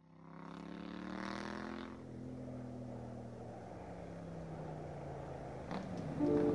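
A motorcycle engine running, loudest about a second in, then its pitch slowly falls as it eases off. Steady music notes come in at the very end.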